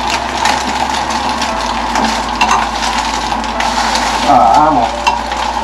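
Egg frying in a frying pan, a steady sizzle, with a spatula scraping and clicking against the pan.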